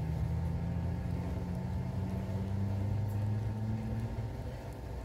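A steady low engine hum, its pitch rising slowly, that drops away about four seconds in.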